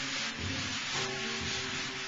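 Live music from a saxophone ensemble with keys, bass and drums: held notes, with a steady tone entering about a second in, over a steady hiss.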